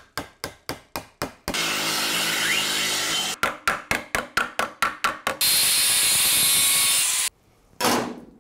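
Sheet-metal shop work: a run of sharp strikes at about four a second, then steady power-tool noise, then a faster run of strikes and more steady power-tool noise that cuts off suddenly, with a brief burst near the end.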